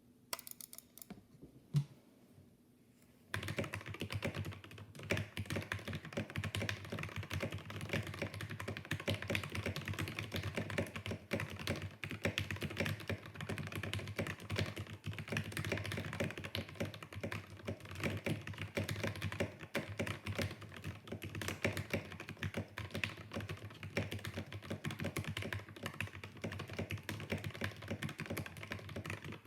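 Royal Kludge RK68 mechanical keyboard with Vaseline-lubed red linear switches, tape-modded and foam-filled, typed on quickly and continuously, giving deep clacks. A few separate key clicks come first, and steady fast typing starts about three seconds in.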